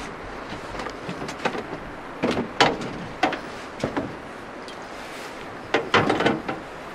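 Scattered knocks and clatter in a drift boat, with a quick flurry of them near the end, over steady river noise.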